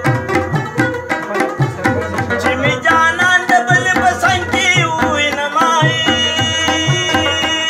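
Pashto folk music played live: tabla drumming a steady rhythm under plucked rabab melody, with a man's voice singing from about halfway through.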